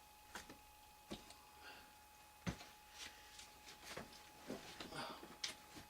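Scattered light knocks, clicks and rustles of dolls and other items being handled and set down, the loudest knock about two and a half seconds in, over a faint steady hum.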